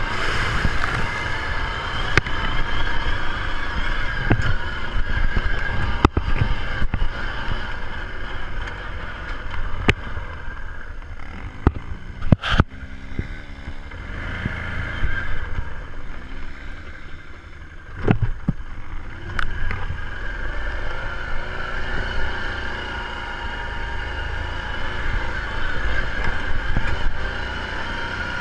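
ATV engine running while riding, with scattered sharp knocks and rattles. It eases off and quiets for several seconds in the middle, then picks up again.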